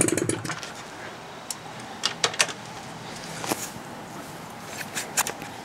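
Scattered sharp clicks and knocks of someone handling a motorcycle as it is readied to start, about seven in all, with a louder sound fading out in the first half second.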